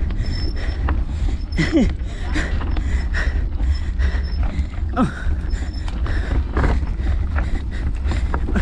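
Wind rumbling on a mountain bike's camera microphone, with loose gravel crunching and clicking under the tyres on a steep climb and the bike rattling. A couple of short creaks or squeaks come through, about two seconds in and again about five seconds in.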